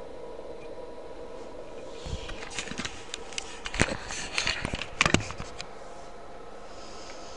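A steady low hum of room tone, then a run of sharp clicks and knocks lasting a few seconds near the middle, the two loudest about a second apart.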